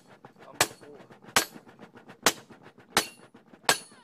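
A blacksmith at a traditional forge hammering metal by hand: five sharp strikes about every three-quarters of a second, each with a brief metallic ring.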